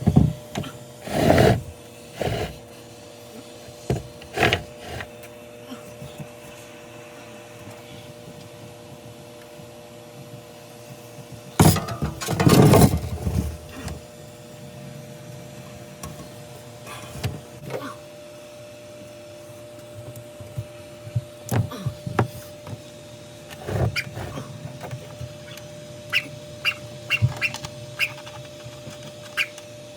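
Knocks, scrapes and clicks of water filter and softener housings being handled and set in place, with a longer loud scrape about halfway through and a quick run of sharp clicks near the end, over a steady hum.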